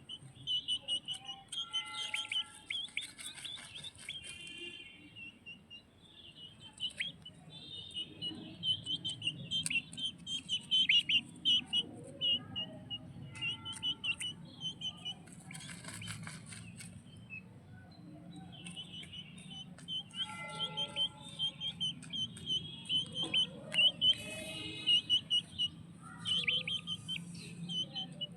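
A baby bird chirping in quick runs of high, sharp chirps, with short pauses between the runs.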